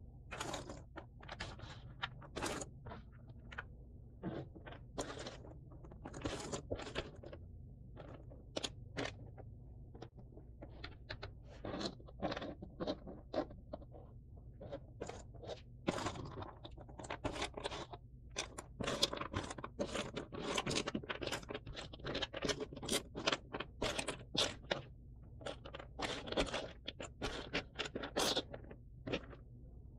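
Cardboard jigsaw puzzle pieces being handled, slid and scraped across a surface in a stream of short scratchy rustles. The strokes come thicker in the second half.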